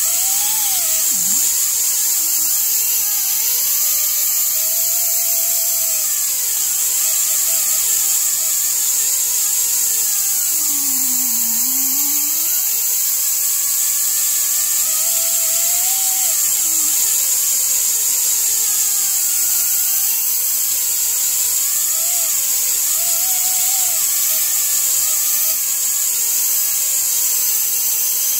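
Pneumatic die grinder with a small sanding pad running against a large maple disc turning on a lathe: a steady high air hiss with a whine that wavers up and down in pitch, along with the rasp of sanding.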